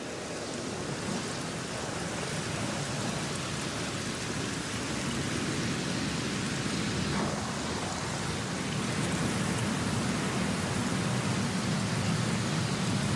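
Rain falling steadily, swelling in over the first couple of seconds, with a low rumble of thunder underneath: a tropical rainstorm at the start of the rainy season.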